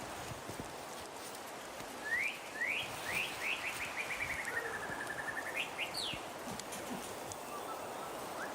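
A songbird singing: three quick rising notes, then a fast trill that slides down and levels off, then two higher rising notes. Under the song runs a steady rushing noise.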